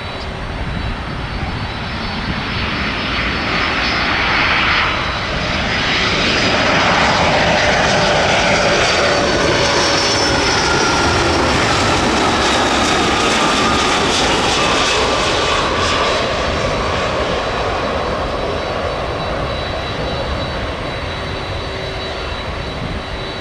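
Jet airliner engines passing by. The roar swells to a peak about a third of the way in and then slowly fades, with whining tones that drop in pitch as the aircraft goes past.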